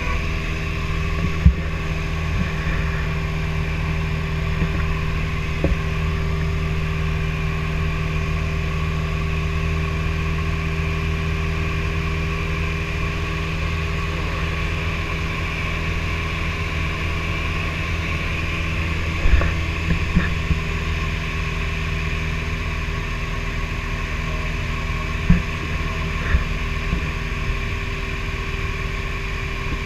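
Steady drone of a light single-engine propeller airplane's engine and propeller, heard inside the cabin in flight. A few brief knocks come about two-thirds of the way in and again near the end.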